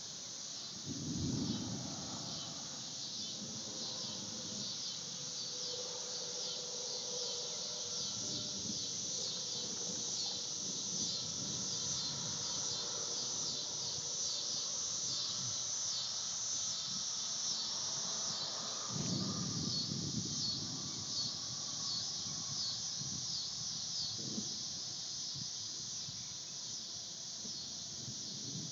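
A steady, high-pitched insect chorus drones with a fast shimmering pulse, typical of summer cicadas. A few short low rumbles rise over it, loudest about a second in and again around nineteen seconds in.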